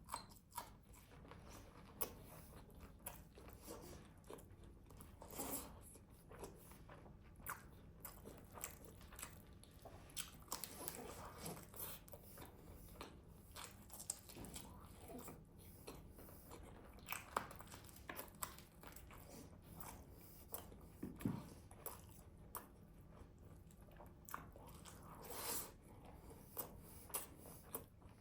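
Close-miked eating of grilled chicken: irregular bites and chewing with scattered crunches and small clicks.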